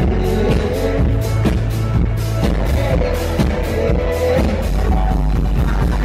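Live band playing loudly: a steady drum beat under guitar, violin and a voice.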